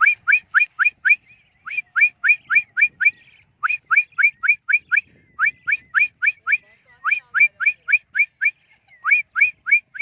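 A person whistles a rapid string of short, sharply rising notes, about four a second, in bursts of five or six with brief pauses between them. This is a recall whistle calling a free-flown pet budgie back.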